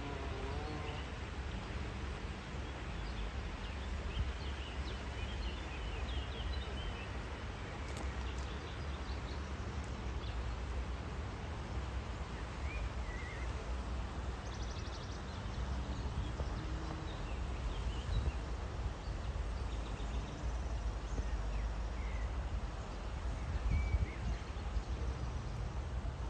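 Outdoor nature ambience: a steady low rumble with scattered faint, short bird chirps.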